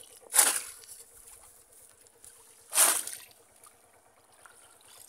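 A conical bamboo polo fish trap plunged down into shallow muddy water, splashing twice about two and a half seconds apart, each splash sudden and quickly fading.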